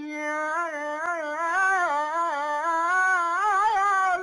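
A man singing the Arabic 'ya leil' phrase, drawing it out as one long held note that wavers and turns in ornaments, ending on 'leil' near the end.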